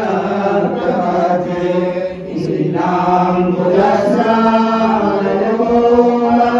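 A group of women singing a Hindu devotional hymn together in a chant-like melody, the lead voice amplified through a microphone. A steady held note runs beneath the voices.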